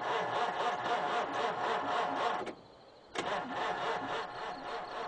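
A 1940s car's engine being cranked on the starter, a rapid even churning of about four beats a second, without catching. It stops abruptly about two and a half seconds in, and a second cranking attempt begins about half a second later.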